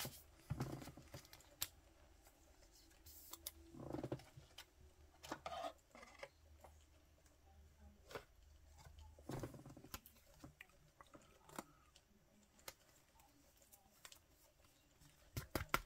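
Faint, scattered clicks and light rustling of trading cards being handled, with a quick run of clicks near the end.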